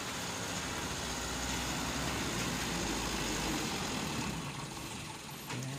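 Diesel truck engine running under load as the truck crawls up a rutted, muddy dirt track; its low drone eases off about three and a half seconds in.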